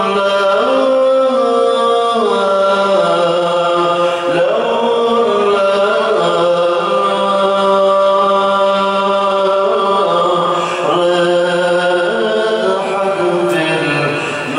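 A man's voice singing an Arabic devotional song (qasidah) into a microphone, in long held notes that glide and bend between pitches, with no drum beat.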